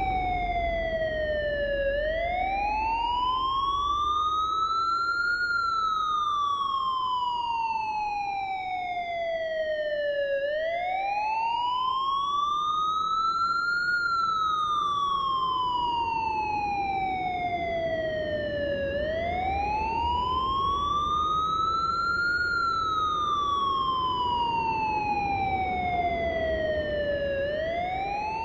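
Siren wailing in a slow, even cycle: the pitch rises over about three and a half seconds, then falls over about five, about three times, over a low rumble.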